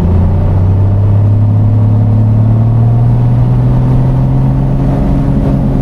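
Light aircraft's piston engine run up to full takeoff power, the drone climbing a little in pitch over the first few seconds and then holding steady at full power.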